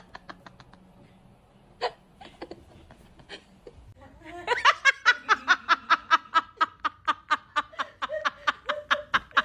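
A person laughing in quick, even 'ha-ha-ha' pulses, about four or five a second, starting about halfway through, after a few faint clicks.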